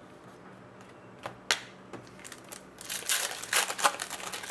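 Trading cards and their pack wrappers being handled: two sharp clicks about a second and a half in, then about a second of rustling and crinkling starting about three seconds in.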